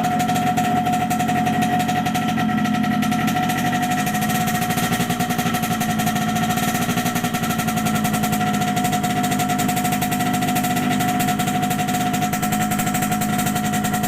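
Yamaha RX-King's single-cylinder two-stroke engine running steadily with a fast, even beat, and a steady high tone above it.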